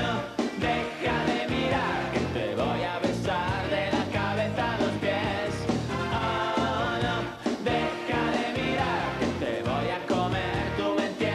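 Pop-rock song: a male voice singing over a band with drums and electric guitar.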